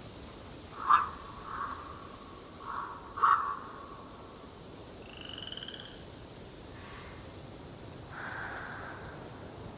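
Birds calling in an autumn forest: two loud, short harsh calls about a second apart, with softer calls between them, a brief higher trill midway and another call near the end, over a steady background hiss.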